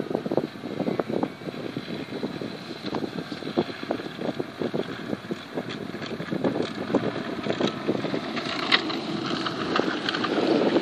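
Bombardier B12 tracked snowmobile running and moving through snow, with a dense irregular clatter of knocks from its running gear. A steadier engine note comes in near the end, and wind buffets the microphone.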